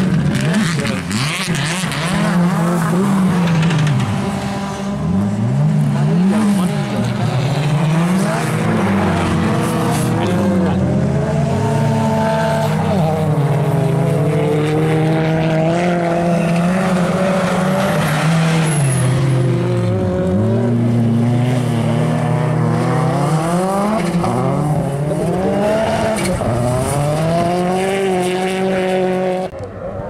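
Rally car engine revving hard on an ice track, its pitch climbing and falling again and again through gear changes and lifts off the throttle. The sound drops away just before the end.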